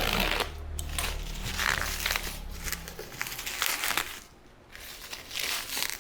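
Packaging crinkling and rustling in irregular bursts as a parcel is handled and unwrapped, with a brief lull a little past the middle.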